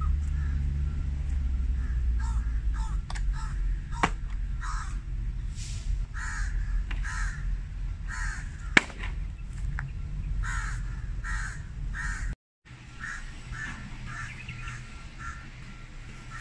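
Crows cawing repeatedly, one to two caws a second, over a low rumble. Two sharp clicks from the plastic folding work table as it is folded, the louder one about nine seconds in. The sound drops out for a moment near the end.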